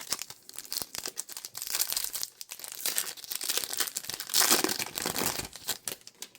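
A trading-card pack wrapper crinkling and tearing as it is handled and ripped open, with a dense run of crackles that grows louder about two thirds of the way through.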